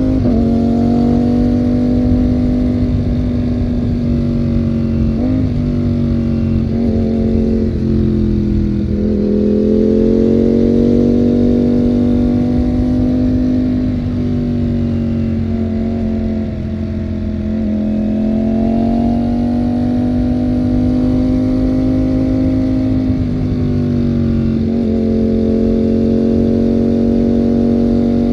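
Ducati Panigale V4 motorcycle's V4 engine running under way at a moderate, fairly steady pace, its pitch rising and falling gently with the throttle. A few brief breaks come where the pitch jumps, around five to nine seconds in and again near the end.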